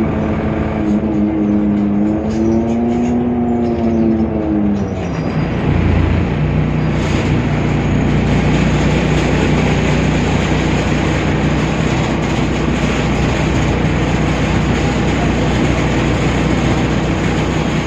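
Temsa Avenue LF bus's DAF PR 228 diesel engine running. For about the first five seconds a wavering pitched tone sits over it. Then it changes to a steadier, rougher running sound from about six seconds in.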